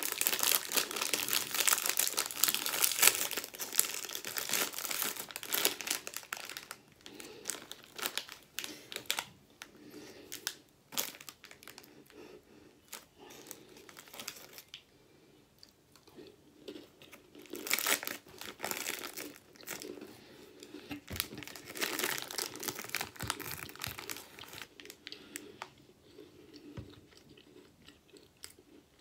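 Plastic snack bag of Mini Cheddars crackers crinkling and tearing as it is worked open, with dense crackling for the first several seconds. After that come sporadic rustles and two louder bursts of crinkling as hands reach in for crackers.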